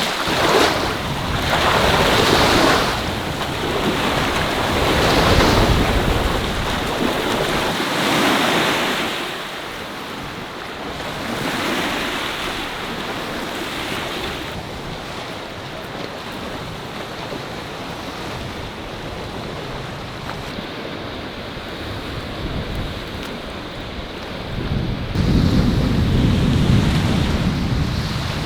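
Sea waves breaking and washing up on a beach, swelling several times and easing off. Near the end, wind buffets the microphone with a low rumble.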